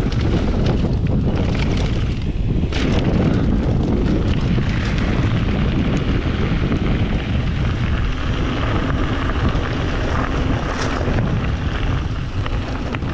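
Wind buffeting the microphone while a mountain bike rolls at speed down a dirt trail and out onto a gravel road, its tyres rumbling steadily, with a couple of short knocks from the bike.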